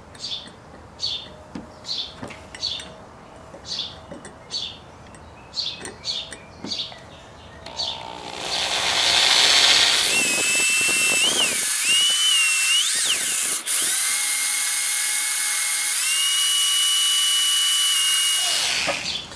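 Electric hand drill with a small 1/8-inch bit drilling into a hardened steel shaft, running for about ten seconds from eight seconds in, its whine wavering as the bit bites and stepping up near the end before it stops. Before the drill starts, a bird chirps over and over, about twice a second.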